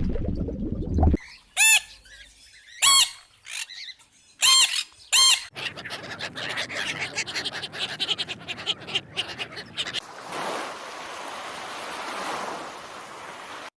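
Four short, loud animal calls, each rising and falling quickly in pitch, followed by a dense run of rapid clicking chatter and then a steady hiss. The calls come after a low rushing sound that cuts off about a second in.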